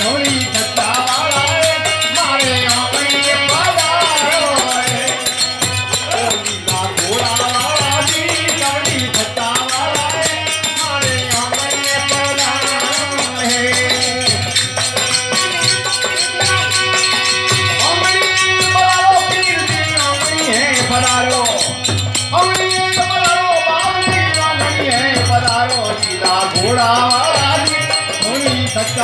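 Devotional folk music: a dholak drum and steady jingling, rattling hand percussion, with a voice singing over them.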